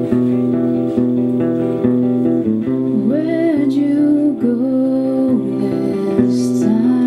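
Acoustic guitar playing a steady chord pattern, with a wordless vocal line gliding up and down over it from about three seconds in until about five and a half seconds.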